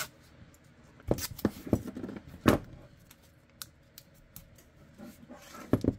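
Tape being worked onto a plastic gun mold by hand: a handful of sharp clicks, the loudest about two and a half seconds in, then faint scattered ticks and handling noise.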